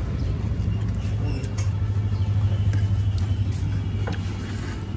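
Steady low mechanical hum, with a few faint clicks over it.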